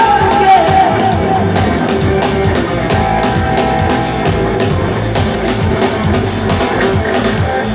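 Live reggae band playing an instrumental passage: drum kit with a steady beat, bass and guitar, and a sustained melodic line over the top.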